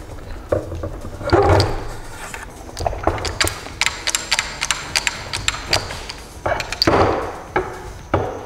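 Steel transmission parts clinking and knocking, with two longer scraping rubs, as the gear-laden mainshaft of a Nissan CD009 six-speed manual gearbox is worked out of its case by hand.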